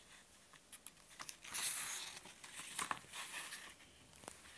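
Faint rustle of a picture book's paper page being turned by hand. The main swish comes about one and a half seconds in, with smaller rustles and a few light ticks around it.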